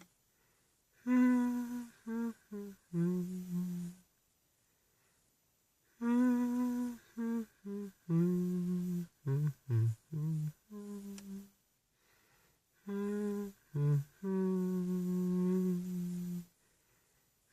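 A person humming a slow melody alone, in three phrases of short notes and longer held notes, separated by silent pauses.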